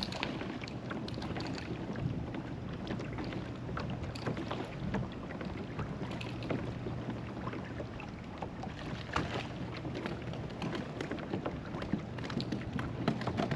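Water lapping and splashing against a fishing kayak's hull, with many small irregular ticks and splashes and light wind on the microphone.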